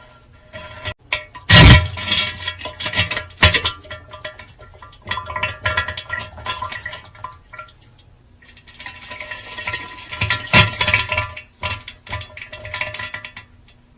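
Pooping sound effect: irregular wet plops, splashes and drips into water, with two louder splashes, one early and one about ten seconds in.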